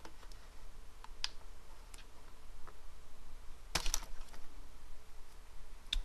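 Light plastic clicks and taps from handling an Acer Aspire One netbook's loose keyboard and its ribbon cable connector. The clicks are scattered and faint at first, with a louder cluster a little under four seconds in.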